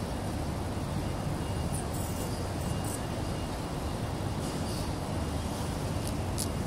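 Steady low rumble of road traffic, with a few faint high clicks about two and six seconds in.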